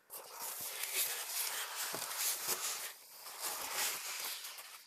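Rustling and crinkling of a plastic bag and foam packing as they are handled in a cardboard box, with a brief lull about three seconds in.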